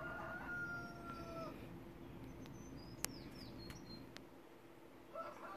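The quiet opening of a recorded song playing through Revel Ultima Salon 2 floor-standing loudspeakers in a room. It has two long held calls, one near the start and one near the end, each falling away at its end, with faint short high chirps and a single click between them.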